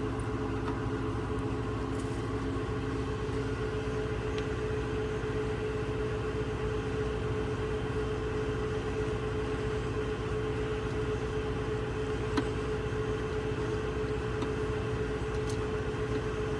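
Steady mechanical hum with a constant mid-pitched tone, like a motor running nearby, and a single faint click about twelve seconds in.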